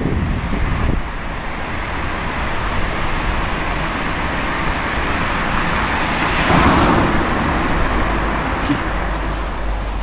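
A small kei van driving out of a road tunnel and passing close by. Its engine and tyre noise grows, is loudest about six and a half seconds in, then eases off.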